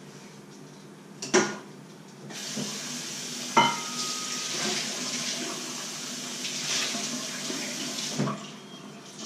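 Kitchen sink tap running for about six seconds as dishes are rinsed. There is a sharp knock about a second in before the water starts, and a ringing clink of crockery against the sink about a second after it starts. The water stops with a thump near the end.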